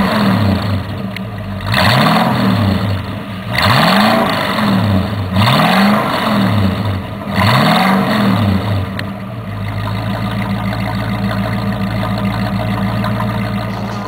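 1964 Ford Ranchero's 260 V8, mildly cammed, revved five times in quick blips about two seconds apart, then settling to a steady idle for the last few seconds.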